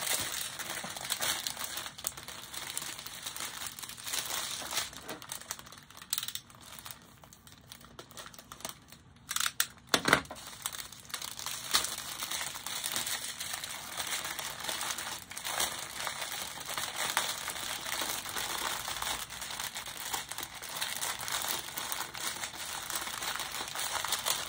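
Clear plastic wrap crinkling as hands unwrap and handle a bundle of small bags of diamond painting drills. The rustling comes and goes irregularly, eases off for a few seconds in the middle, and has a few sharp crackles about nine to twelve seconds in.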